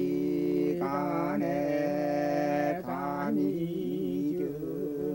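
Men's voices chanting a classical Confucian text aloud in the traditional Korean sing-song reading style (geul ingneun sori), long held notes whose pitch rises and falls, with short breaks between phrases.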